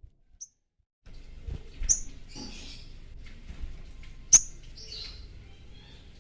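Sogon songbird in breeding condition calling: after a second of near silence, a sharp high chirp about two seconds in and a louder one past four seconds in, each followed by a short scratchy chatter.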